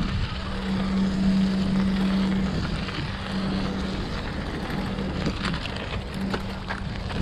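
Riding noise from a bicycle on the move: wind buffeting the chest-mounted camera's microphone over tyre and road rumble. A steady low hum drops out a few times, and a few light rattles come about five seconds in.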